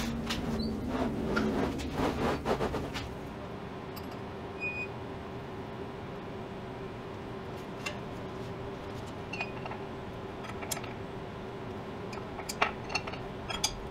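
Scattered light clinks and taps over a steady faint hum, with a cluster of clicks in the first few seconds and a few more near the end.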